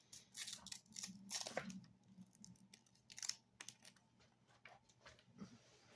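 Quiet handling noises of a power cable and plug being sorted out and plugged in: a run of rustles and clicks in the first two seconds, another sharp click about three seconds in, then a few softer ones.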